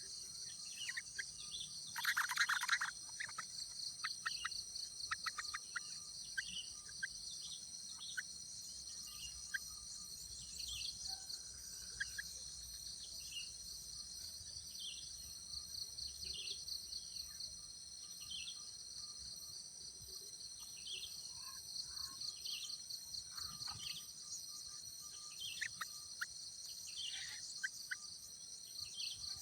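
A steady, high insect chorus of crickets or cicadas, with short bird chirps scattered through it and one louder burst of calling about two seconds in.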